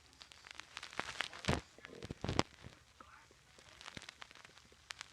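A person's stomach gurgling: a string of small pops and clicks, with two louder ones about one and a half and two and a half seconds in.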